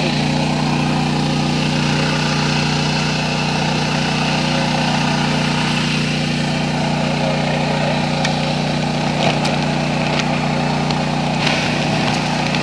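A small engine running steadily at an unchanging pitch, with fertilizer pellets being poured into a plastic drone hopper and a few light knocks in the second half.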